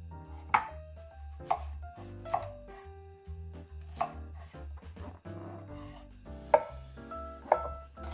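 Chef's knife chopping through carrot and onion onto a wooden cutting board, with single crisp strokes about once a second. Light background music with a bass line plays underneath.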